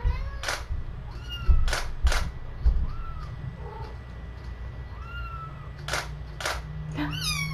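Young kittens mewing: short, high, squeaky cries that rise and fall, several times over. Sharp clicks come in pairs, about two seconds in and again near six seconds, with a few low thumps.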